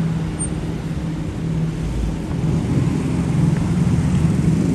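Road traffic, with a nearby vehicle engine's low, steady hum that grows louder toward the end.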